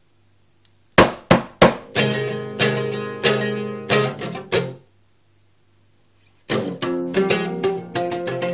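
Solo oud, a fretless lute, plucked with a plectrum. After about a second of silence comes a phrase of sharply plucked notes, then a pause of about a second and a half, then a quicker run of notes near the end.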